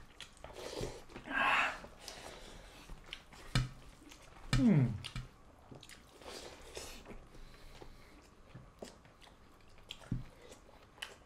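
Two people chewing and biting mouthfuls of rice and egg-and-pork curry, with many small wet clicks from the mouths. A brief falling voice sound comes about four and a half seconds in.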